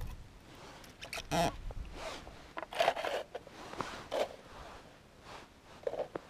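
A series of short, irregular scrapes and rustles as hands handle a plastic ice-fishing tip-up set over a hole in the ice, with jacket sleeves rubbing.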